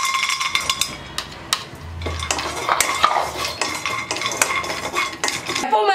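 Cashew pieces clattering into a dry nonstick kadai, with a brief ringing note at the start. Then a wooden spatula scrapes and stirs the cashews around the pan in a steady run of clicks and scrapes as they dry-roast without oil.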